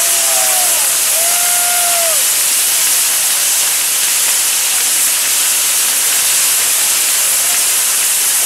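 Steady, loud hiss of many pyrotechnic fountains burning together on a spinning Maltese ground-firework wheel.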